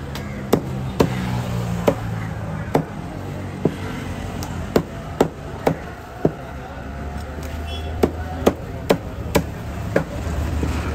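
Heavy cleaver chopping through raw yellowfin tuna flesh into a wooden chopping block, with about fifteen sharp knocks at irregular intervals. A low steady hum runs underneath.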